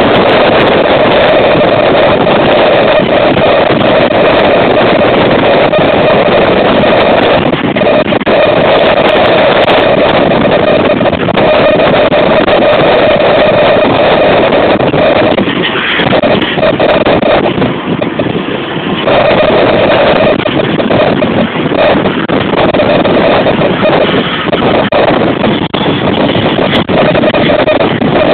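Storm wind blasting straight onto a phone microphone: a loud, steady rush of wind noise that eases briefly about two-thirds of the way through.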